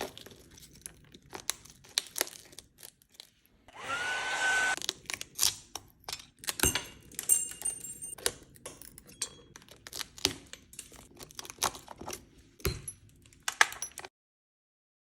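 Many sharp taps and clicks from tools working at the cracked back glass of an iPhone 13 Pro Max, with a short whirring burst about four seconds in. The sound cuts out about a second before the end.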